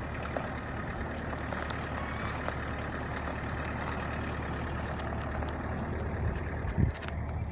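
An engine running steadily with a low, even hum, and a single thump near the end.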